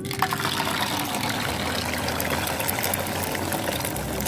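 Beaten eggs sizzling as they are poured into a hot oiled frying pan: a steady, dense hiss with fine crackling spatters.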